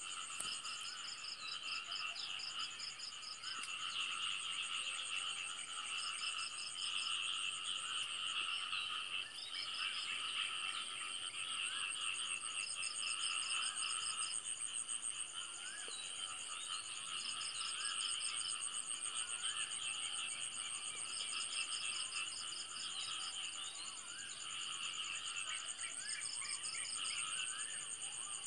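Night chorus of frogs and insects: many frogs calling at once, over steady, high-pitched insect trills.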